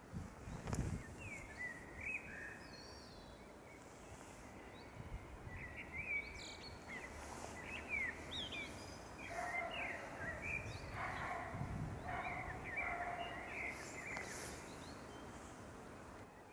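A songbird singing from a perch: a run of short whistled, warbled and trilled phrases, busier in the second half. A few low rumbles, like wind on the microphone, sit under it, the loudest about a second in.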